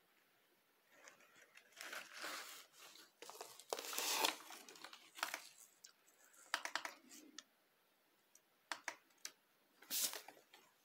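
Irregular rustling and crinkling handling noise in bursts, with a few sharp clicks about nine seconds in and a final burst near the end.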